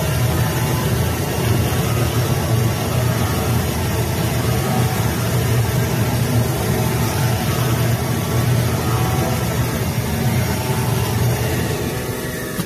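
Automatic flatbed CNC cutting machine running as it cuts a sheet of foam: a loud, steady mechanical hum.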